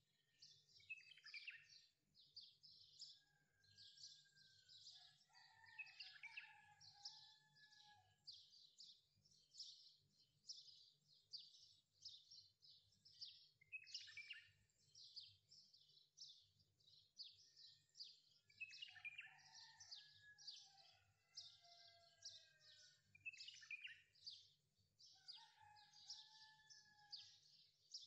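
Faint birdsong: a dense run of quick, high chirps, with a lower whistled call that slides down in pitch three times. A low steady hum lies underneath.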